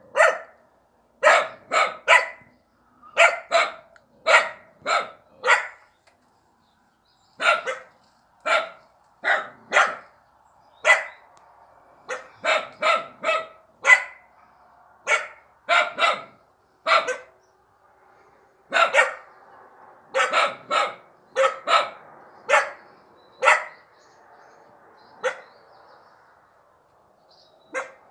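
Dogs barking, short sharp barks in quick runs of two or three, repeated with brief pauses.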